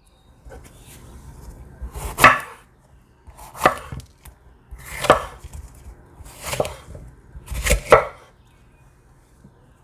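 Knife chopping food on a cutting board: about five firm strokes, roughly one every second and a half, the last a quick double stroke.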